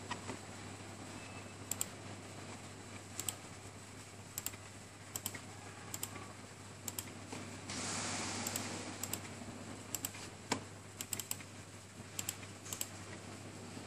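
Sharp single button clicks, irregular and about one every half second to a second, from the pointing device that moves the on-screen cursor. Each click picks a key as a Wi-Fi password is entered on an on-screen keyboard. A short burst of hiss comes about eight seconds in, over a low steady hum.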